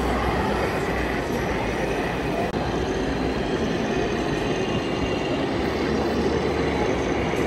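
Steady background noise of a busy exhibition hall: a low rumble under a crowd's hubbub, even throughout, with no single sound standing out.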